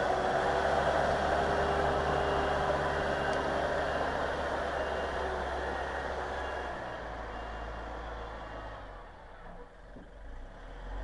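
Everun ER1500F compact wheel loader's diesel engine running as the loader pushes heavy wet snow with its plow blade, with a steady whine over the first half. It fades as the loader moves away and rises again near the end.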